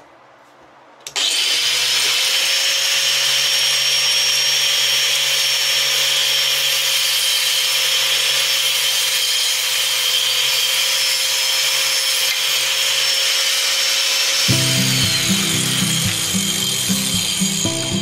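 Small electric mitre saw switched on about a second in, its motor running with a steady high whine as the blade cuts through a thin wooden strip. Near the end the whine drops in pitch as the motor winds down.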